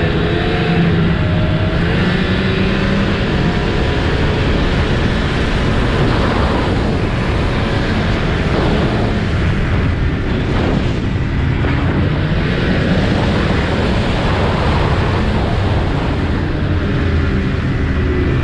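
Snowmobile running along a groomed trail at speed, its engine note wavering up and down over a steady rush of noise.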